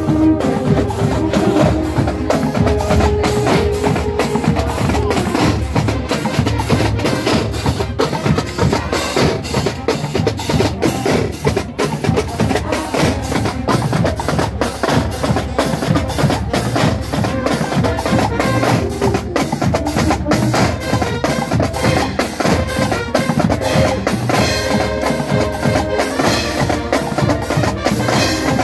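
Marching band percussion section playing a march cadence: snare drums, bass drums and hand cymbals. Brass notes carry over in the first few seconds, and pitched notes return near the end.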